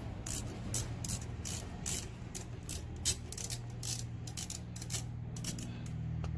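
Socket ratchet wrench clicking in short, uneven runs as its handle is swung back and forth on an engine bolt.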